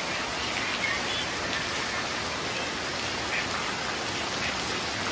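Rain falling steadily on a wet paved street, an even hiss with a few brief louder drips now and then.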